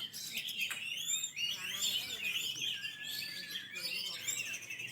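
Several oriental magpie-robins (kacer) singing at once, a dense, unbroken tangle of overlapping whistles, rapid chirps and sweeping notes.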